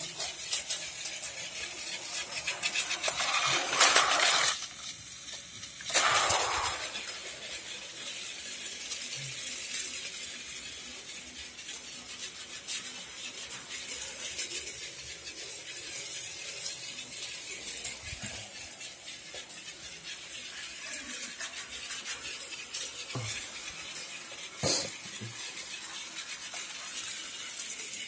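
Battery-powered plastic toy trains running on blue plastic toy track: a steady light clattering with many small clicks. It is louder for a few seconds near the start, and there is one sharp click about three-quarters of the way through.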